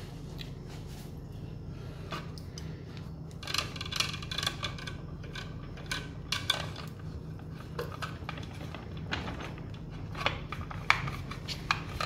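Scattered small clicks and metallic clinks of electrician's hand tools and copper house wire being trimmed, twisted and handled at a plastic switch box, over a steady low hum.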